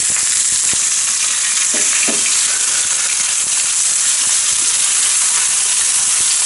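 Raw pork pieces and sliced garlic sizzling steadily in hot oil in a non-stick frying pan, with light scrapes and taps of a silicone spatula as they are stirred.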